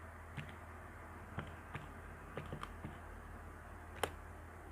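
Keys being pressed one at a time as a calculation is keyed in: about seven separate soft clicks spread unevenly over a few seconds, the sharpest about four seconds in, over a steady low hum.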